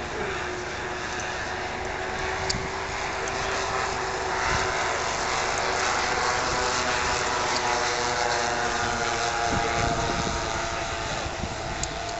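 Propeller engines of large-scale radio-controlled model WWII bombers (B-17, Lancaster and Heinkel He-111) droning together as they fly past. The sound swells in the middle, and the pitch sinks slightly as they go by.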